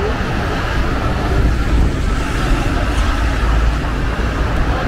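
City street traffic noise with a low engine rumble that swells in the middle.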